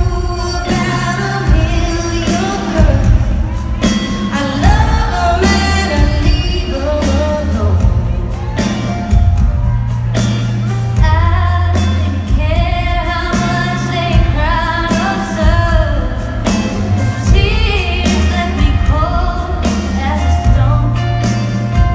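Live band music with female voices singing over a strong bass line and drums.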